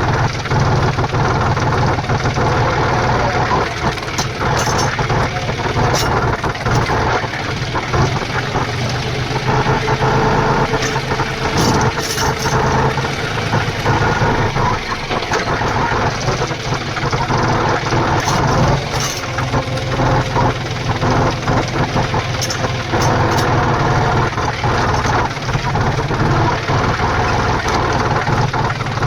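Tractor engine running steadily at idle, with a few sharp clanks now and then.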